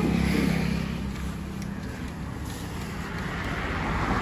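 Road traffic noise, with a steady motor-vehicle engine hum through the first second and a half that then fades.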